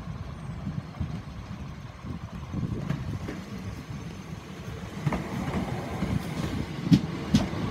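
Class 321 electric multiple unit running in past at close range: a low rumble that grows louder about five seconds in, with sharp wheel clacks over rail joints near the end as the coaches go by.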